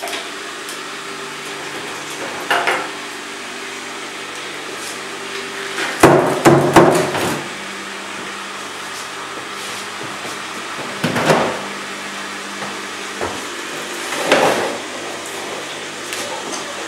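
Electric radial honey extractor running with a steady motor hum. Sharp knocks of boxes being handled cut across it: once near the start, a loud cluster about six seconds in, and twice more later.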